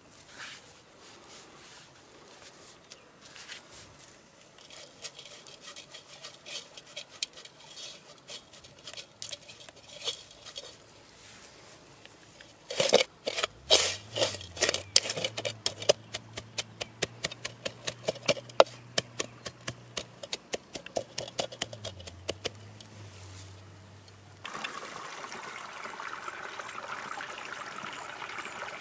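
Crushed castor seeds and their dry husks rattling and crunching as they are rubbed and stirred by hand in a clay pot: light scattered clicks at first, then a dense run of sharp clicks. About 24 seconds in this gives way to the steady run of shallow stream water as the pot is dipped in it.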